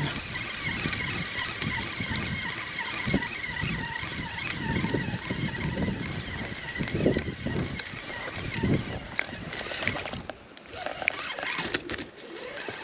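Wind buffeting a body-worn camera's microphone in irregular gusts, with a faint steady high whine behind it that fades out after about nine seconds.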